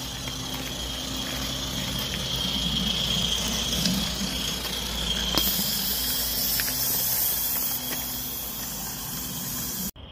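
Coal-fired Accucraft Ragleth live-steam garden locomotive running with a steady hiss of steam and a constant high-pitched squeal. The hiss grows louder and brighter about halfway through.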